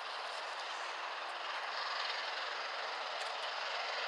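A1 Pacific steam locomotive 60163 Tornado, a three-cylinder engine, working hard as it accelerates uphill at a distance. Its exhaust blurs into a steady rushing sound that slowly grows louder as it approaches.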